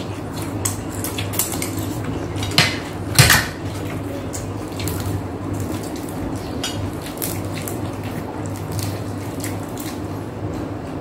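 Mealtime clatter of a spoon clinking and scraping on plates, with food being handled between the taps and two sharper clinks about two and a half and three seconds in. A steady low hum runs underneath.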